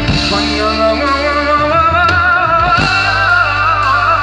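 A live pop band plays through a concert PA, with guitars and keyboards. About halfway through, a wordless sung line with heavy vibrato comes in over the band.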